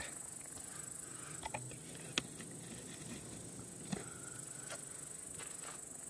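Crickets chirring steadily, high-pitched, with a couple of soft clicks around two and four seconds in.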